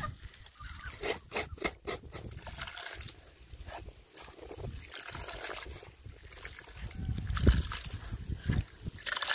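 Hands kneading and squeezing wet grated coconut in a bowl to press out coconut milk: irregular wet squelching with milk trickling. It grows louder about two-thirds of the way through.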